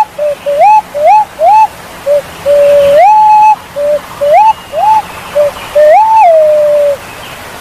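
Punai walik jawa (a pigeon) calling: clear whistled hoots that alternate short level notes with notes that slide upward. A long held high note comes about three seconds in, and the calling stops near the end.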